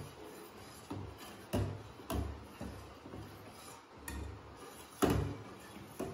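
A long metal spoon knocking and scraping against a stainless steel saucepan while stirring a milky pudding mixture, with about six irregular knocks roughly a second apart.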